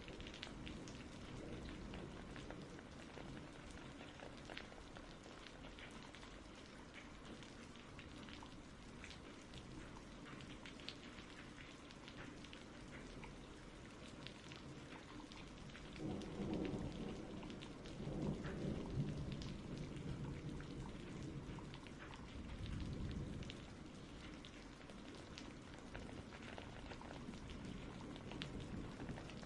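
Steady rain falling, with fine pattering drops throughout, and distant thunder rumbling several times in the second half.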